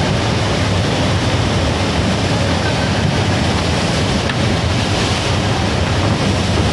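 Rushing water of a FlowRider surf simulator: a loud, steady sheet of pumped water streaming and spraying up the ride surface under a surfer.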